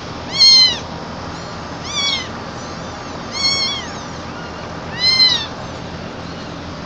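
Young kitten meowing while held in a hand: four high, arching meows about a second and a half apart, the first the loudest.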